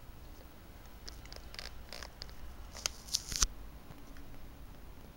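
Handling noise: scattered small clicks and short rustles, loudest about three and a half seconds in.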